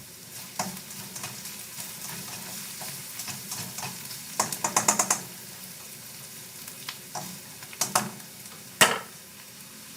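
Garlic, onion and ginger sizzling in hot oil in a pan as they are sautéed toward golden brown, with a utensil stirring and scraping the pan. A quick run of scraping strokes comes about halfway through, and a sharp clack comes near the end.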